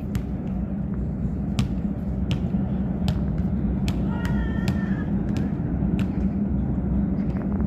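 Steady low rumble of city traffic, with sharp clicks now and then and a brief high call about four seconds in.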